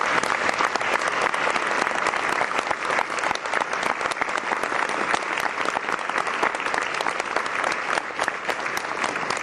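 Audience applauding, a dense, steady clapping that carries on without a break.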